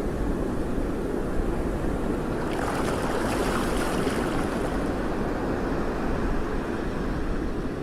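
Steady rumble of wind and water, with wind buffeting the microphone. A brief rush of hiss rises about a third of the way in and fades a couple of seconds later.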